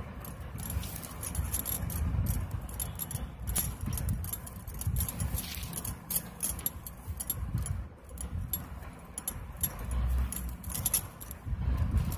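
Plastic basket wires rattling, clicking and rustling against one another as strands are pulled through and tied into knots, with low bumps from hands handling the work.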